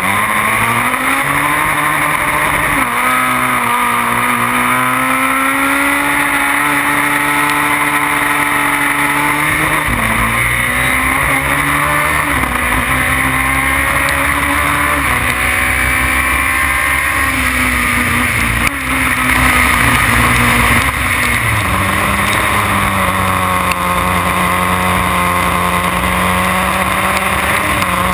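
Formula BMW single-seater's 1.2-litre four-cylinder engine, recorded on board, running hard on track. The engine note climbs and drops several times as the car accelerates and changes gear.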